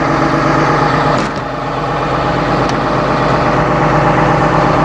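Blue Bird bus's 6.7-litre diesel engine idling steadily, with a couple of faint clicks, one about a second in and one near three seconds.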